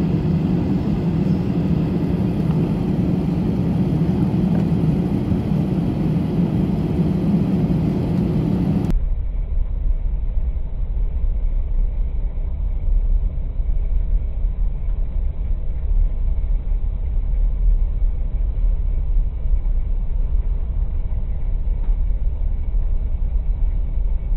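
Steady cabin noise of an airliner on the ground, its jet engines running. About nine seconds in the sound turns abruptly duller, leaving mostly a low rumble.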